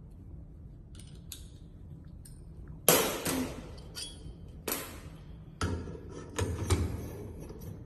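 Metal knocks and clanks as a crimping mold is fitted onto a manual crimping machine: faint clicks, then a loud knock about three seconds in, followed by several more knocks and clanks.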